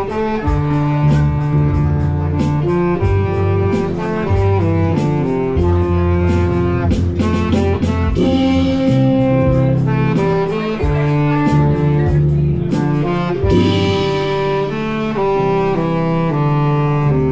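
Live band music: a saxophone playing the melody over electronic keyboards and bass, with a steady beat.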